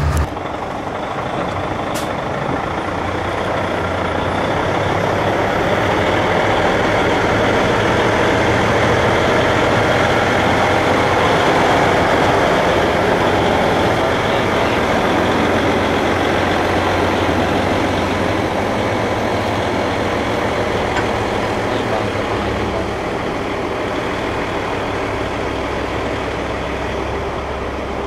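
Heavy tractor-trailer hauling a Shinkansen car moving slowly past, its engine a steady low hum under a wash of engine and road noise. The noise grows to its loudest about twelve seconds in, then eases.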